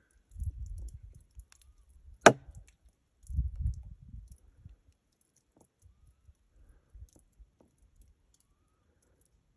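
A single sharp crack about two seconds in, plausibly a 9mm shot from a Glock 34 pistol. Low, muffled rumbling comes before and after it.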